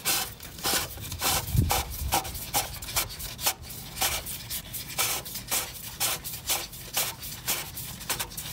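Oil filter housing cap being screwed by a gloved hand into the housing of a VW Jetta 2.5 engine: short rasping rubs about twice a second as the cap is turned on its threads, with one low knock about one and a half seconds in.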